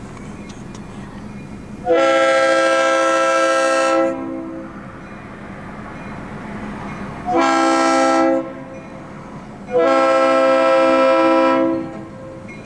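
EMD GP38 diesel locomotive's multi-tone air horn blowing for a grade crossing: a long blast about two seconds in, a short one about seven seconds in, then another long one. The locomotive's diesel engine and the rolling train run underneath, heard between the blasts.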